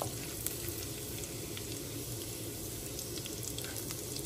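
Cumin seeds frying in hot oil in a kadai, sizzling steadily with a few faint crackles as they are stirred with a wooden spatula.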